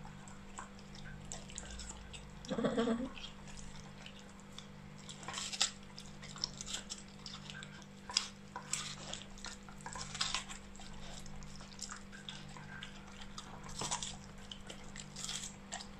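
Siberian husky puppy chewing and licking juicy watermelon flesh, scraping it off the rind with her teeth: irregular wet smacking and crunching.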